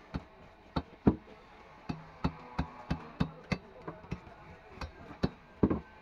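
Tilapia being cut on a boti, the upright curved floor blade: a run of sharp knocks and chops at an uneven two to three a second, loudest about a second in and near the end.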